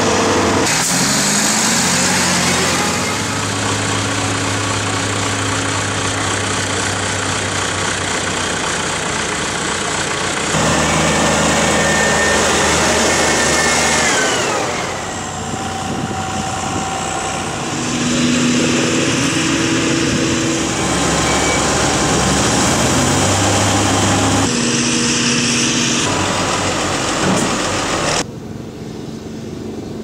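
Diesel engines of heavy farm machinery at a maize silage harvest, running under load: a wheel loader on the silage clamp, a tractor with a silage trailer and a forage harvester. The engine note changes abruptly several times as the shots change, with an engine revving up near the start and winding down about halfway through.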